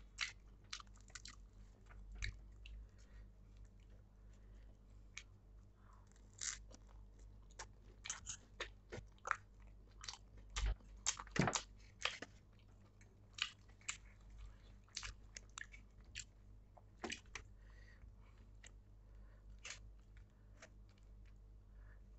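A person chewing pav bhaji (buttered bread rolls and a soft vegetable mash) close to the microphone, with scattered short mouth clicks and smacks. The loudest run comes about ten to twelve seconds in.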